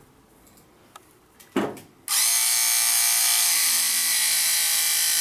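WBT-1 cordless electric scissors switched on about two seconds in. The motor then runs steadily with a high whine, cutting through a rubber sheet about 3 mm thick.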